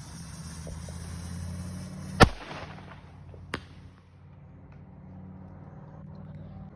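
Small consumer floral shell fired from a mortar tube: a hiss, then a sharp launch bang about two seconds in, and a smaller pop about a second and a half later as the shell opens in the sky without a loud break.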